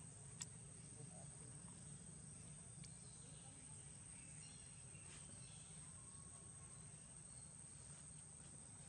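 Near silence: faint outdoor background with a steady high-pitched insect drone and a few soft clicks.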